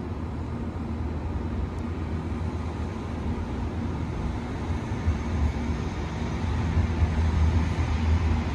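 JR Kyushu 883 series electric train standing at the platform, its equipment giving off a steady low hum with a fainter hiss above it, growing slightly louder about five seconds in.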